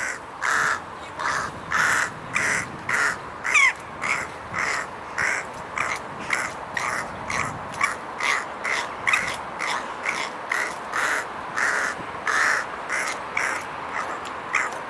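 A bird calling over and over in a long, even run of harsh calls, about two a second, with one sliding call a few seconds in.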